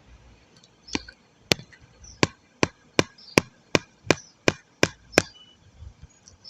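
A run of about eleven sharp, crisp knocks, roughly three a second, starting about a second in and stopping a little after five seconds.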